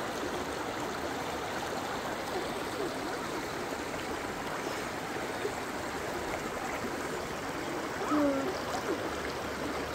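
Shallow mountain creek running over granite boulders and gravel: a steady, even rush of water.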